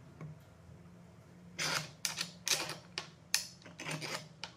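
A quick run of clicks and short scrapes, starting about a second and a half in and lasting about three seconds: a metal T-handle threaded rod and its nut being handled and fitted against the wooden block of a small sled jig. A steady low hum runs underneath.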